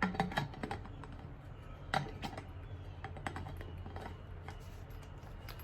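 Light clicks and taps of a plastic lid being handled on an insulated stainless steel water bottle, a quick cluster of clicks at first and then scattered single ones, one sharper about two seconds in.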